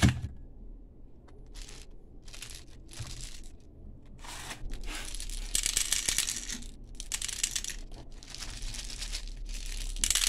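Plastic toy pellet gun being handled: a thump at the start, then irregular crinkling and scraping of plastic that grows louder after about four seconds.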